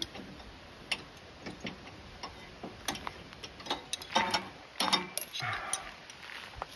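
Irregular light metallic ticks and clinks of a 13 mm wrench working the nuts on a riding mower's threaded deck-lift rod, with a few louder clinks about four and five seconds in.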